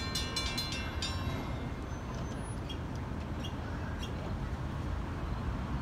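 Railroad grade-crossing warning bell ringing in quick strokes, falling silent about a second and a half in as the crossing gates come down. A steady low rumble runs underneath, with a few faint ticks after the bell stops.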